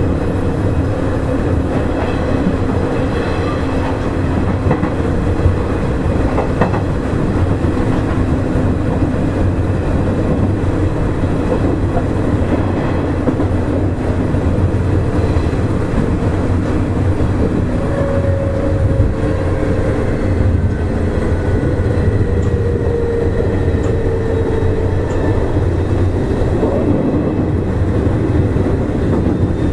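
Nishitetsu 5000 series electric train running steadily: a continuous rumble of wheels on rail with clickety-clack from the rail joints. A faint motor whine drifts slightly down in pitch in the second half.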